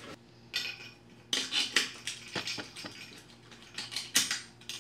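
Small metal tools clinking and rattling against each other and the workbench in several short bursts.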